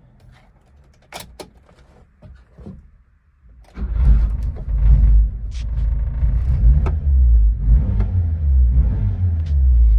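A few light clicks, then about four seconds in the 1995 Subaru Sambar Dias Classic's 660cc four-cylinder engine starts up and runs with a steady low rumble.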